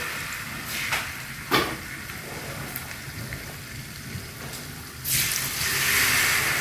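Spoonfuls of cucur (vegetable fritter) batter dropped into hot oil in a frying pan, sizzling. A couple of sharp knocks come in the first two seconds, and a loud burst of sizzling starts about five seconds in as the next spoonful hits the oil.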